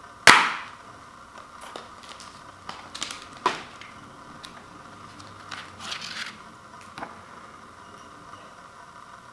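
Plastic Blu-ray case snapping open with one sharp, loud click just after the start. It is followed by smaller plastic clicks and taps and a brief papery rustle as the disc case and its paper insert are handled.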